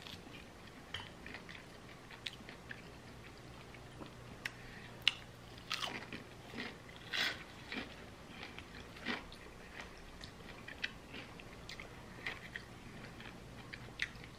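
Close-up eating sounds of fried chicken: the crispy pieces are pulled apart by hand and chewed, giving scattered soft crunches and mouth sounds, with a few louder bites in the middle.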